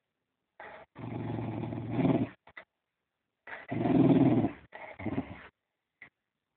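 Fox terrier growling in two long bouts with short breaks between, the second bout the loudest about four seconds in.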